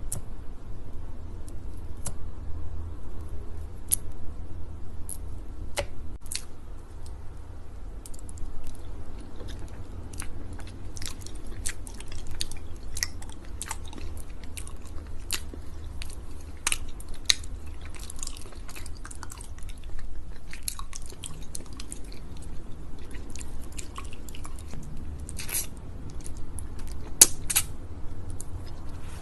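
Close-miked ASMR chewing with sticky, wet clicks, a few scattered at first and then coming thick and fast from about a third of the way in.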